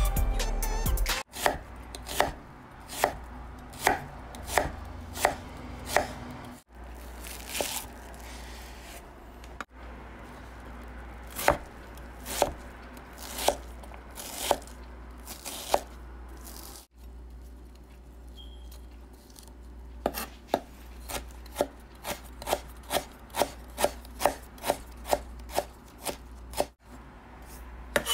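Chef's knife chopping onion on a wooden cutting board: sharp, evenly spaced knocks of the blade on the board, about one and a half a second, speeding up to about two a second near the end. The chopping stops and restarts abruptly a few times.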